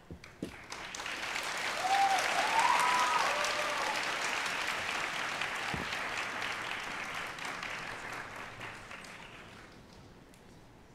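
Audience applauding at the end of a choir's performance. The clapping swells over about two seconds, peaks, then slowly dies away, with a few high rising-and-falling calls near its loudest point.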